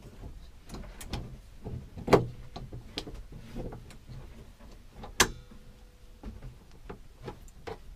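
Clicks and knocks of hands and a spanner working a threaded fitting on a plastic washbasin as a tap connector is screwed back on. Two louder knocks come about two and five seconds in.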